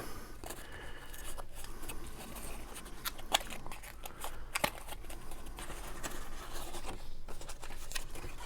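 Cardstock being folded and creased by hand, with light paper rustling and a few sharp crackles.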